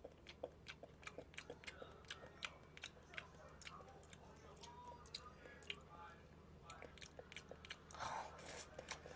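Close-miked eating of instant cup noodles: a steady run of small wet chewing clicks, with a louder slurp of noodles about eight seconds in.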